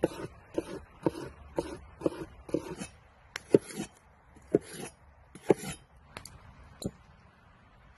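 A large knife slicing crisp bell pepper on a wooden cutting board: each cut gives a crunch and a knock on the board. The cuts come about two a second at first, then three heavier, more widely spaced chops and two lighter ones near the end.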